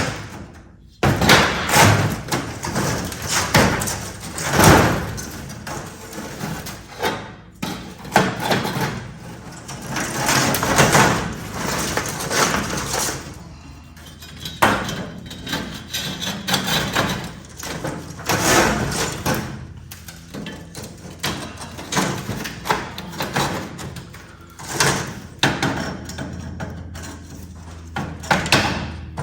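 Irregular knocks, clanks and scraping of used steel plasma-table slats being handled and set in place, several sharp knocks among longer stretches of rattling scrape.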